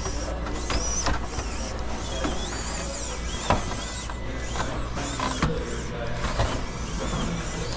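Tiny electric motor and geared drivetrain of a 1/18-scale Traxxas TRX-4M RC crawler whining, the pitch rising and falling with the throttle, with a few sharp clicks as the truck picks its way over rock.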